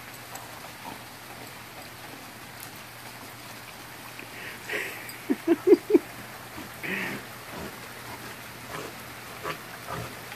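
Steady hiss of falling water across the whole span, with a quick run of four short low grunts about halfway through, the loudest sound here.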